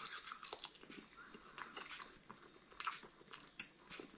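A person biting into and chewing a grilled sausage, heard as faint, irregular mouth clicks and smacks.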